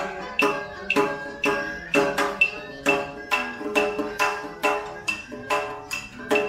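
Traditional Vietnamese ceremonial music: plucked strings over a steady beat of sharp, ringing percussion strikes, about two to three a second.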